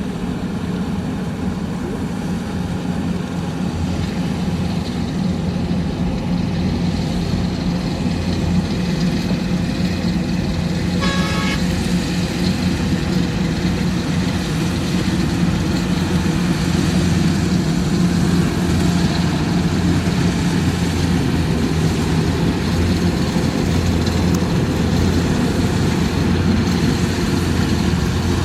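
Rice combine harvester's engine running steadily, with one short horn toot about eleven seconds in.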